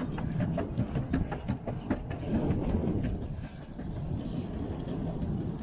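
Skateboard rolling fast over pavement, a steady low rumble from the wheels with many quick irregular clacks and knocks.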